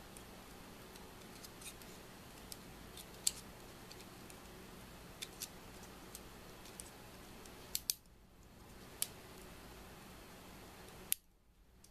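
Faint, irregular clicks and taps of tweezers against the small metal and plastic parts of a disassembled Canon FD 50mm lens's aperture linkage, over a low steady hum.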